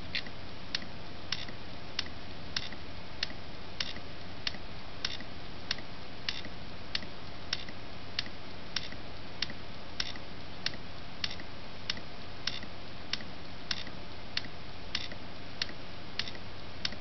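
Samsung HD204UI 2 TB hard disk drive's heads clicking over and over at an even pace, about three clicks every two seconds, some doubled, over the steady hum of the spinning drive. This is the head noise of a failed drive that can no longer read its data.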